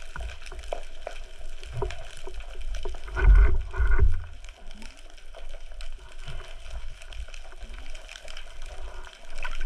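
Underwater sound heard through a camera housing: water moving and gurgling around it, with scattered light clicks. Two louder low, rushing gurgles come about three and four seconds in, and another starts near the end.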